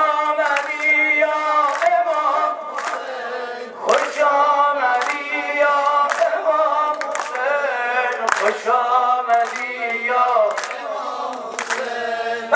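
A man singing a Persian Shia devotional chant (maddahi) into a microphone over a PA, in long, bending melodic phrases. A sharp beat lands about once a second under the singing.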